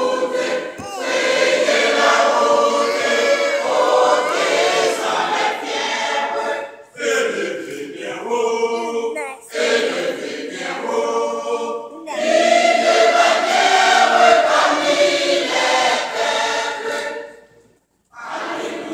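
Church choir of mixed voices singing in phrases separated by brief breaks, with a short full stop near the end.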